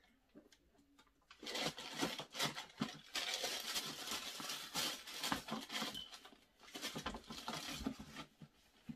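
Paper rustling and crinkling with quick light knocks as a sneaker and its shoebox are handled. It starts about a second and a half in and stops shortly before the end.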